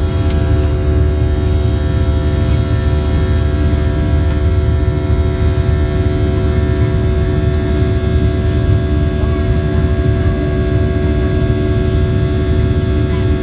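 Passenger aircraft's engines heard from inside the cabin after takeoff: a steady, loud low rumble with several steady whining tones above it.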